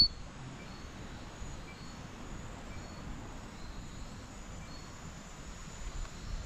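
Night rainforest ambience: one loud two-pitched chirp right at the start, then faint short chirps at the same pitches repeating about once a second, over a low rustle.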